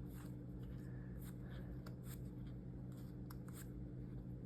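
Trading cards being handled: short scratchy slides and flicks as cards are moved against each other, over a steady low electrical hum.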